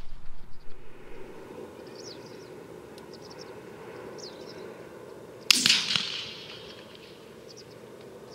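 A single sharp shotgun shot from a Browning A5 12-gauge semi-automatic about five and a half seconds in, with a fainter crack just after and a short echoing tail. A few faint bird chirps come earlier, over steady open-field background noise.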